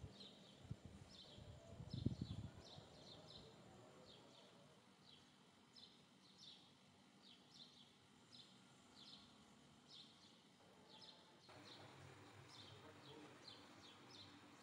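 A knife cutting through a fried chicken breast and knocking dully on a plastic cutting board a few times in the first couple of seconds. Faint, high, short chirps repeat about twice a second all the way through.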